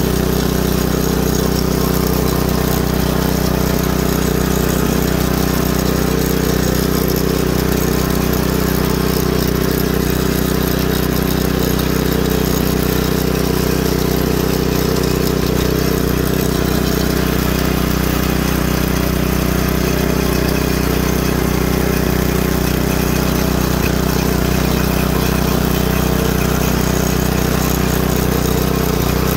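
Yard Machines front-tine rototiller's small gasoline engine running steadily at an even speed as its tines dig through the soil.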